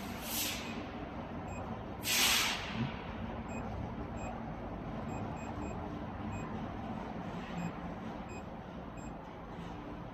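Steady machine hum with two short hisses: a faint one at the start and a louder one about two seconds in.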